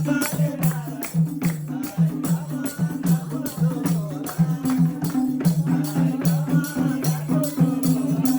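Instrumental break in a Nepali dohori folk song: jingling hand percussion keeps a steady beat over a low, repeating melodic line, with no singing.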